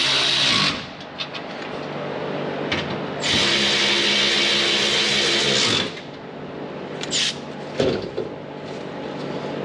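Milwaukee cordless ratchet running in two steady bursts as it drives bolts home in a combine's sheet-metal cover panel: the first stops under a second in, the second runs from about three to six seconds in. A few light knocks follow near the end.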